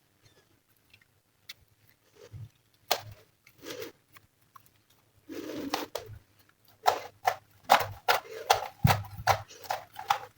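Glossy slime being squeezed and pressed by hand, giving short wet clicks and pops, with one longer squish a little after the middle and the pops coming quickly from about two-thirds of the way through.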